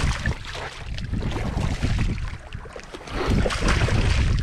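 Wind rumbling on the microphone, with a hooked striped bass splashing and thrashing at the surface beside the boat; louder again from about three seconds in.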